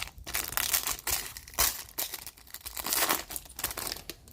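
Foil trading-card pack wrapper being torn open and crinkled by hand, a run of uneven crackling rustles.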